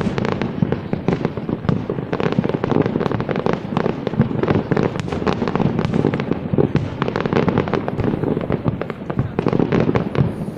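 Fireworks display in a dense, continuous barrage: many bangs and crackles per second over a steady rumble, with no pause.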